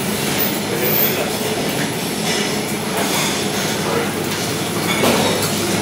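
Steady din of a busy breakfast dining room: many voices talking indistinctly in the background over a constant room noise.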